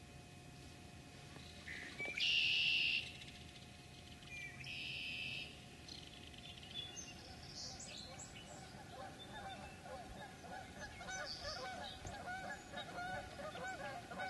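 Canada geese honking in overlapping calls that build up over the second half. Before that come two short, harsh, high-pitched bird calls of about a second each.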